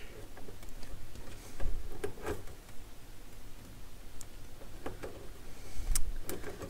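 Low mains hum from the Dual CS 607 turntable's phono output through the amplifier, the fault being chased (a bad hum on the right channel). Over it come scattered small clicks and a few light knocks as the screw in the tonearm's headshell adapter is worked loose.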